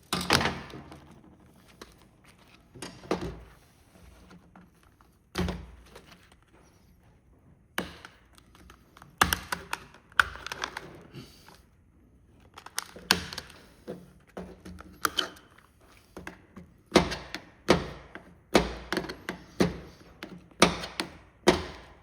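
Hard plastic remote control casing being worked at by hand: a series of sharp knocks and clicks, sparse at first and coming about once a second in the second half. The case is still held shut by something.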